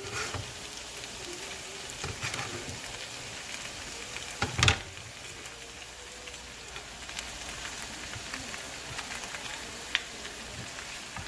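Diced potatoes and onion frying in oil in a nonstick skillet over medium heat, a steady sizzle with freshly added raw diced chicken breast on top. A few short knocks, the loudest about halfway through.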